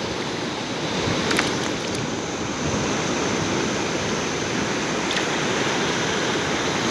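Surf breaking and washing up a beach, a steady rush of waves heard through a phone's microphone.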